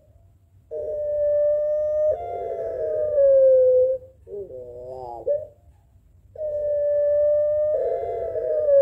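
Puter pelung dove (a long-voiced domestic collared dove) cooing: two long drawn-out held notes, each lifting a little partway through and then sliding down, with a short wavering coo between them.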